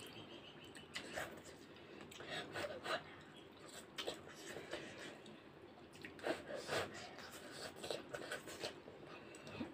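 Two people eating instant noodles quickly: faint slurping and chewing, with a few short clicks of spoon and fork against plates.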